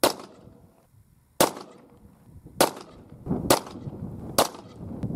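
Homemade pistol with a plumbing-pipe barrel chambered in .40 S&W firing five shots about a second apart, the gaps shortening slightly toward the end.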